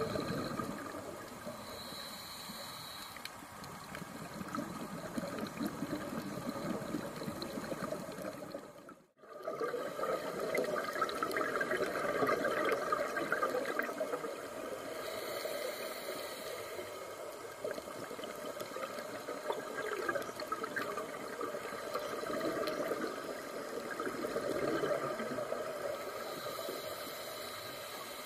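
Underwater sound on a scuba diver's camera: a rushing, bubbling noise of exhaled scuba bubbles and moving water that swells and eases every few seconds. It cuts out briefly about nine seconds in.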